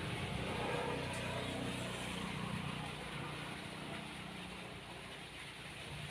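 An engine running, its hum growing over the first couple of seconds and then fading away.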